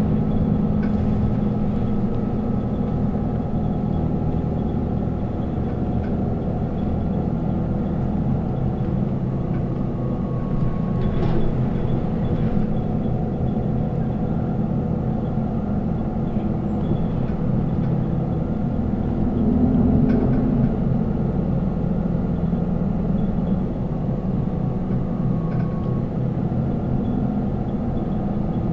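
Isuzu Erga non-step city bus (2TG-LV290Q3) under way, heard from inside the cabin: a steady drone from its four-cylinder turbo-diesel engine and drivetrain. It swells briefly about twenty seconds in, and there are a few faint rattles around the middle.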